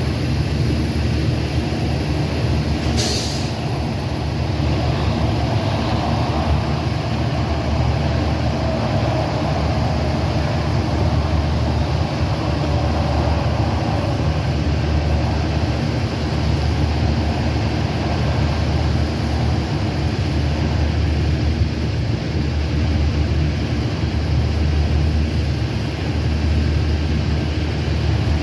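Steady low outdoor rumble with slow swells, and one short sharp click about three seconds in.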